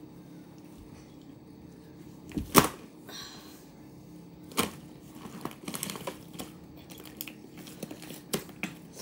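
Slime being squished and worked by hand, giving sharp clicking pops and wet crackles. The loudest pop comes a little over two seconds in, and a run of smaller crackles follows around six seconds.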